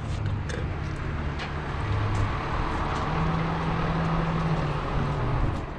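Crane truck's engine running, its speed stepping up about three seconds in, holding, and dropping back shortly before the end.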